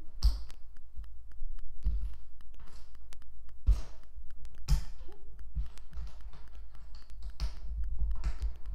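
Plastic Lego bricks being handled and pressed together: a string of small clicks and taps, with several louder clacks spread through.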